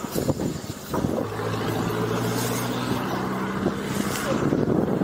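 An engine humming at one steady pitch from about a second in until about four seconds in, over wind rumbling on the microphone.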